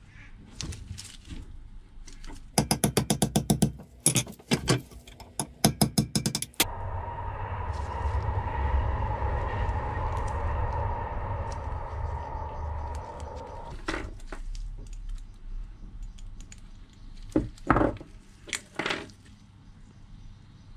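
Small metal parts and hand tools clicking as a bicycle pedal is stripped down: rapid runs of clicks early on. A steady hum follows for about seven seconds, then a few scattered clicks and knocks.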